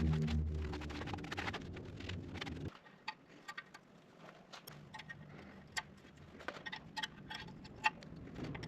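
Scattered light clicks and ticks of small parts or tools being handled, after a low hum that stops abruptly about three seconds in.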